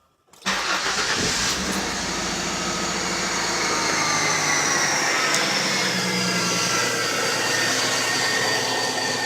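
1995 Ford Mustang's 3.8-litre V6 starting about half a second in and settling into a steady high idle, with a faint whine that slowly falls in pitch as the idle has yet to kick down. The engine has fresh spark plugs and new vacuum lines.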